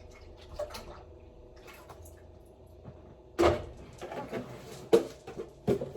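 Kitchen handling sounds over a low steady hum: a loud knock about three and a half seconds in, then two sharper knocks near the end, as items are set down and moved at the stove.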